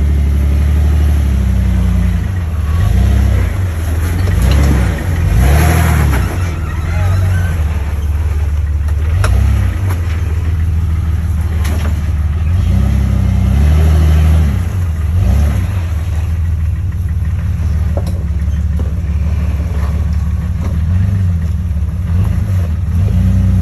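Jeep engine running at crawling speed, its pitch rising and falling again and again as it is throttled over rocky trail, with a few sharp knocks along the way.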